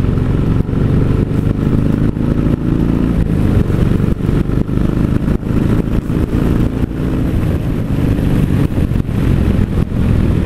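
Motorcycle engine running steadily at road speed while climbing a country lane, its note shifting only slightly, with rushing wind noise on the bike-mounted camera's microphone.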